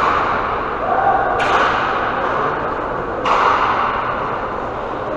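Roller hockey play in a large echoing rink: three sharp cracks of stick and puck, at the start, about a second and a half in and about three seconds in, each ringing on briefly, over a steady rumble of inline skate wheels on the floor.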